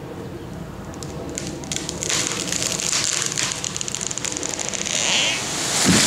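A tall tree being felled and falling: the wood cracks and snaps from about a second and a half in, the branches and leaves rush through the air as it goes over, and the trunk hits the ground with a heavy thud at the very end, the loudest moment.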